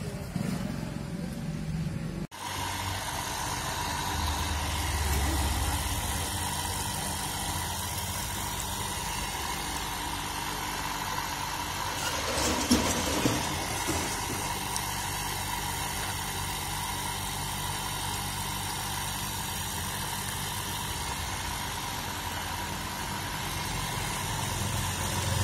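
A 1 hp electric water pump motor running steadily, giving a constant hum, with a brief louder knock about halfway through.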